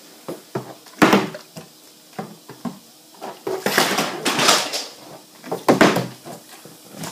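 A plastic water bottle knocking and clattering on a tabletop as it is tossed and flipped, with a sharp knock about a second in and rustling handling noise in between.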